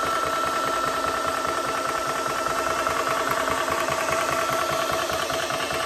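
Portable high-pressure PCP air compressor running steadily with a constant whine over a fast, even low pulsing from its piston, filling the Seneca Dragon Claw PCP air rifle's air reservoir.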